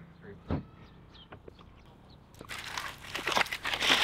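Chip-shop paper wrapper crinkling and rustling as a piece of battered deep-fried cheese is handled on it, starting about two and a half seconds in and growing loud. There is a single soft thump about half a second in.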